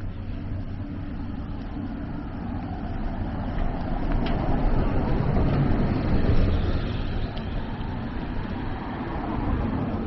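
A road vehicle passing by on a city street, growing louder to a peak about six seconds in and then fading, over a steady low traffic hum.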